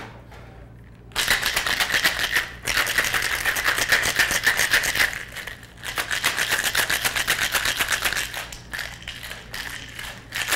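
Ice rattling in a cocktail shaker being shaken hard, a fast, even rattle. It starts about a second in, breaks off briefly, then keeps going.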